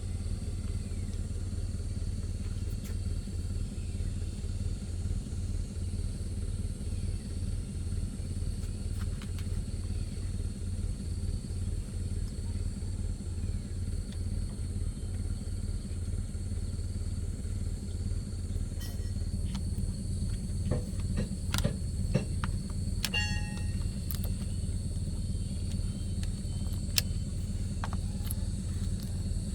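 A motor running steadily with a low, throbbing hum. Scattered sharp clicks and taps come in over the last third.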